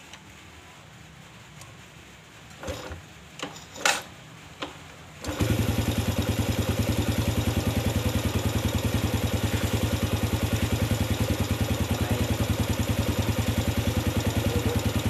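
Yamaha Vega ZR single-cylinder four-stroke motorcycle engine being kick-started. A few sharp knocks come as it is kicked, then it catches about five seconds in and idles with a steady even pulse. Its new oversize piston has cured the rough piston-slap clatter, and it now sounds like a normal motorcycle engine.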